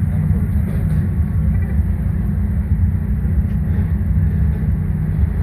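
Car engines and exhausts idling and creeping along, a steady deep rumble.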